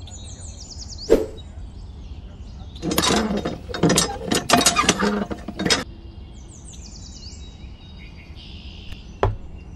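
Small plastic parts of a toy hand pump clicking and rattling as they are handled and fitted onto their base, with a dense run of knocks a few seconds in and single clicks before and after it. Birds chirp faintly in the background.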